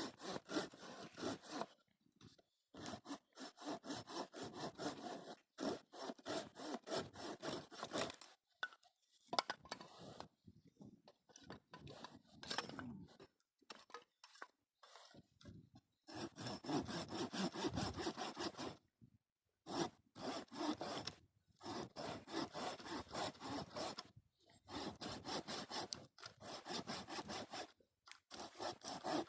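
Hand saw cutting through firewood: runs of quick back-and-forth strokes, broken by short pauses.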